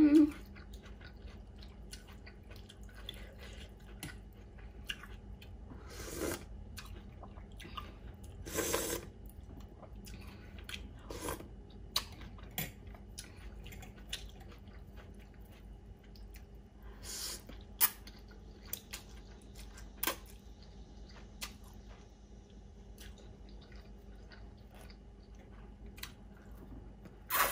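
A person eating pho: quiet chewing with a few short slurps of noodles and broth, and light clicks of a metal spoon and chopsticks against the bowl.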